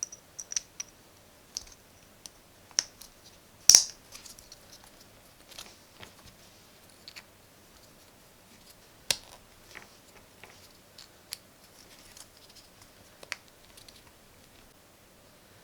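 Irregular sharp plastic clicks and snaps of switches being handled and pressed into the holes of a 3D-printed cube, with one loud snap about four seconds in and another near nine seconds.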